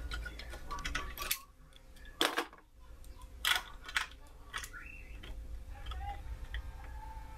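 Sharp clicks and knocks of a sewing machine's parts being handled and adjusted, about five spread over several seconds, over a low steady hum.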